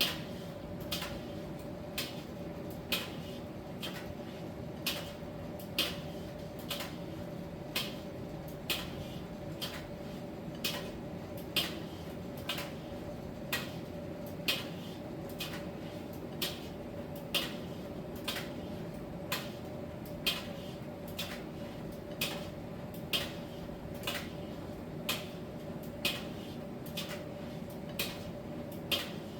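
Miele T1 heat-pump tumble dryer running mid-cycle: a steady hum with one held tone, and a light click about once a second as the load tumbles in the turning drum.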